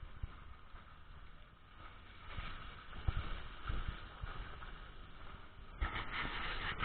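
Vehicle driving on a snow-covered road, heard from inside the cab: low rumble and thuds from the road surface. A louder rattling noise starts near the end.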